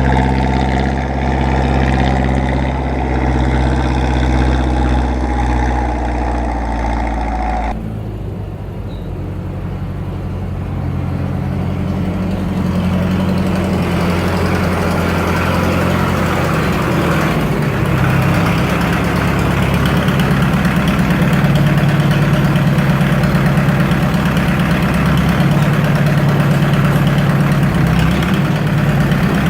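Tractor engine running at a steady idle, loud and close. About eight seconds in the sound changes abruptly to a rougher, lower engine chug with rapid, even firing pulses.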